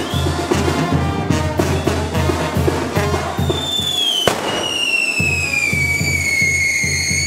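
Band music with a steady bass beat, over which a whistling firework on a festival fireworks tower goes off: a short falling whistle about three and a half seconds in, a sharp crack, then a long whistle slowly falling in pitch.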